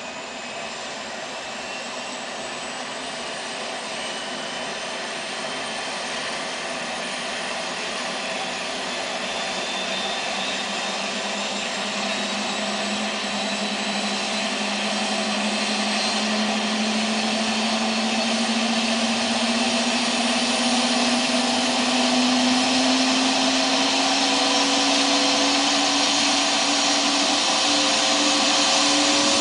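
Eurocopter Esquilo helicopter on the ground, running up: turbine whine and rotor noise rising steadily in pitch and loudness as the main rotor gathers speed.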